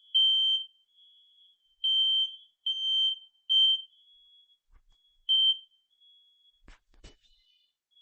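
Smoke detector alarm sounding in the temporal-three pattern: shrill, half-second beeps in groups of three with a pause between groups, then one more beep about five seconds in. Two short knocks follow near the end.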